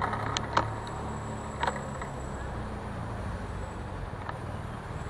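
City street traffic: car engines and road noise running steadily, with three short clicks in the first two seconds.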